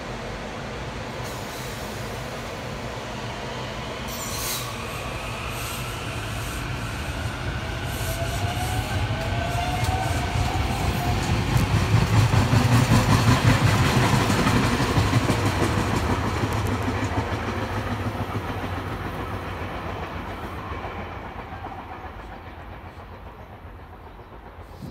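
SEPTA electric commuter train getting under way and running past on the rails. Its rumble builds to a peak about halfway through, then fades as it draws away.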